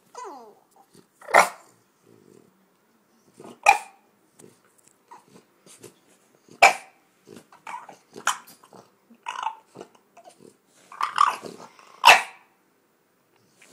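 French bulldog grumbling in short growling bursts every second or two, a few of them louder and sharper than the rest. A brief falling whine comes right at the start.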